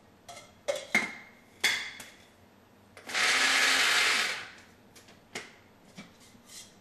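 A small electric grinder is knocked and clicked a few times as it is handled, then runs for about a second and a half. It is giving a paste of cilantro, mint, green chilies and a little yogurt a final short burst of grinding. A few light taps follow.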